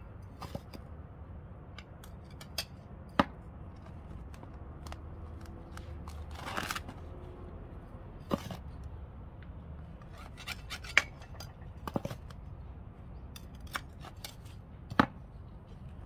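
Scattered sharp clicks and a brief scrape of potting work: plastic pots, a sieve and tools handled while repotting geraniums. A low steady rumble runs underneath.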